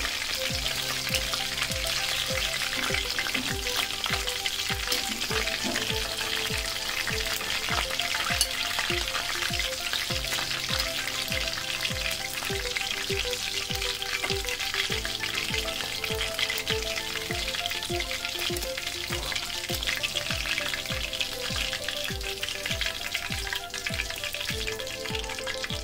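Chicken lollipops deep-frying in hot oil in a kadai, a steady dense sizzle and bubbling as tongs turn the pieces and lift them out. Soft background music with a steady beat sits underneath.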